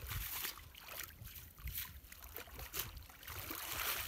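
Shallow muddy water sloshing and splashing as a cast net is hauled in by hand, with a swell of streaming, dripping water near the end as the net comes up out of the water.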